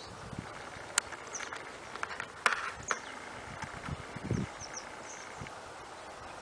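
Outdoor ambience with birds chirping faintly now and then, and a few sharp clicks and low knocks, the loudest clicks about a second in and about two and a half seconds in.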